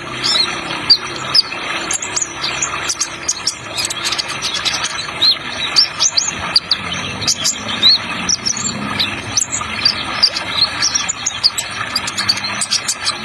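Kolibri ninja trotol singing a fast, high twitter of many short chirps, over a steady hiss of running water.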